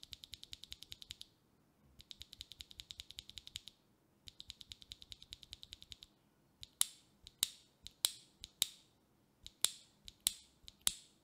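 A single stock linear mechanical keyboard switch from the Leobog K81 (POM stem, clear polycarbonate housing) worked by hand without a keycap. First come three runs of quick clicks, about ten a second. After that come slower single presses, each a sharper click.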